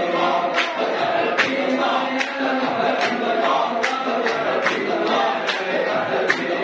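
A group of men chanting a Samman Sufi dhikr in unison, their voices held in long notes, with sharp rhythmic hand claps about two and a half times a second.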